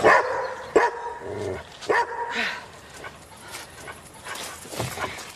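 Dog barking a few short times, the loudest bark right at the start, the others within the next couple of seconds.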